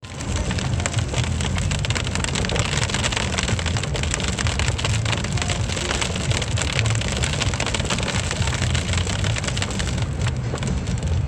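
Heavy rain pouring down, a steady dense patter of drops hitting surfaces with a low rumble underneath.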